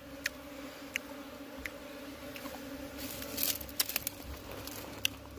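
Honeybees from a broken-open wild nest buzzing in a steady droning hum. A few light clicks and rustles from comb being handled over a woven plastic sack come about three to four seconds in.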